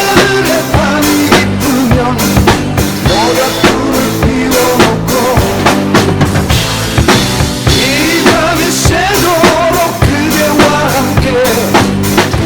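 Drum kit played along to a pop song's backing track in an instrumental passage: steady bass drum and snare hits with rimshots over bass and a lead melody with sliding notes.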